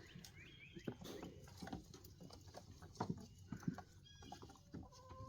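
Goats' hooves tapping and shuffling, faint and irregular.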